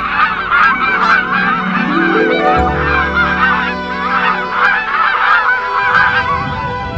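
A flock of greylag geese honking in flight, many overlapping calls that stop about six seconds in. Soft music plays underneath, its notes slowly climbing.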